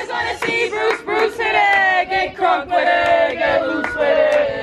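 A group of softball players chanting a dugout cheer together, with hand claps.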